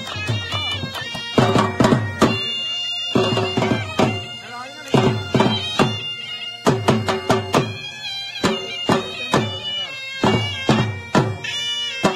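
Dhol drum and been playing jhumar folk music. The been, a reed pipe, plays a melody over a steady drone, and the dhol strokes come in quick groups about every one and a half to two seconds.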